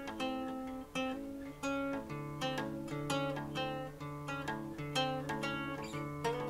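Music: acoustic guitar picking, a run of plucked notes over held bass notes.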